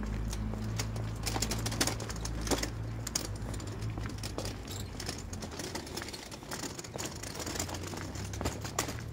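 Footsteps on a pavement: a run of sharp, irregular clicks, with a low steady hum underneath that fades out after about three seconds.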